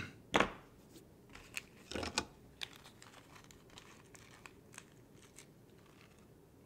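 Rustling and light clicking of small parts and hardware being handled on a workbench, with a couple of louder knocks in the first two seconds.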